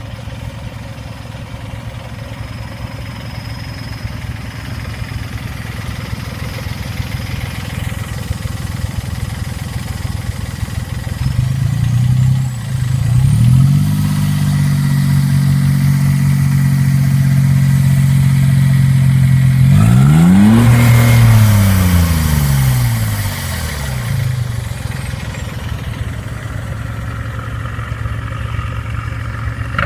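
Smart car engine through an aftermarket exhaust, idling, then revved up about 11 seconds in and held steady high against the rev limiter for several seconds. A quick blip follows, then the revs fall back to idle.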